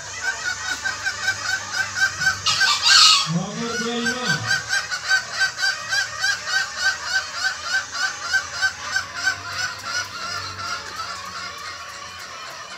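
Fowl calling: a long run of short, rapid, repeated calls, about five a second, fading out near the end. A louder, harsher call comes about three seconds in, followed by a brief low sliding sound.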